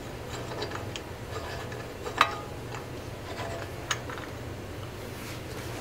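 Ratchet and 32 mm socket clicking irregularly as the axle nut is spun onto a CV axle spindle, with a few sharper metal clinks, the loudest about two seconds in.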